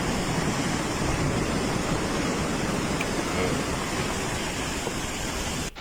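Steady loud roar of rushing water, with a faint voice about three seconds in; the roar cuts off abruptly near the end.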